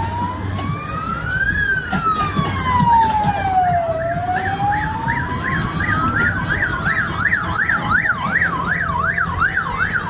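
Electronic siren sounding a slow wail that rises and falls, then switches about six and a half seconds in to a fast yelp of about three sweeps a second, over a low rumble of vehicles.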